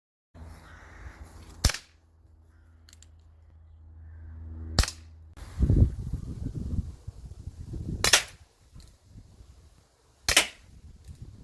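Umarex Colt Single Action Army CO2 pellet revolver fired four times, a sharp crack every two to three seconds.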